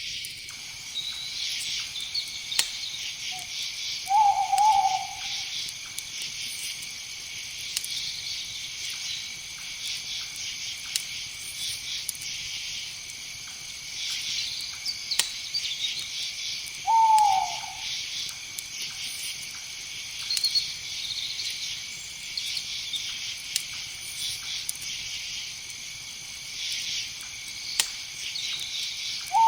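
A steady high chorus of night insects, with an owl hooting three times, roughly every twelve seconds: about four seconds in, just past the middle, and at the very end. Each hoot is short and dips slightly in pitch.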